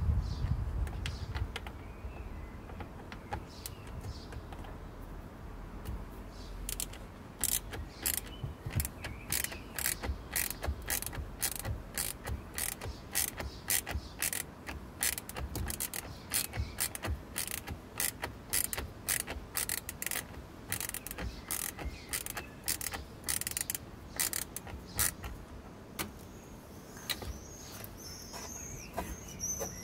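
Socket ratchet on a long extension undoing a radiator cooling-fan shroud screw: a run of sharp clicks, about two or three a second, as the handle is swung back and forth, starting several seconds in and stopping a few seconds before the end.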